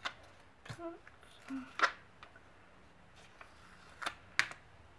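Paper rustling and crinkling in a handful of short, sharp crackles as sticky notes and a loose paper sheet are handled. The loudest crackles come near two seconds in and again just after four seconds.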